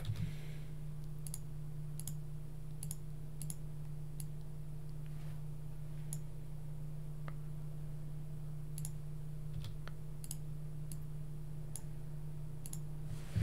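Scattered computer mouse clicks at an irregular pace, over a steady low electrical hum on the microphone.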